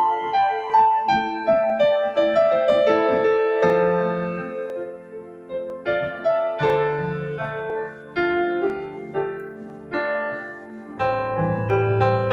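Solo keyboard played with a piano sound. A flowing run of quick notes for the first few seconds gives way to slower held chords with low bass notes underneath.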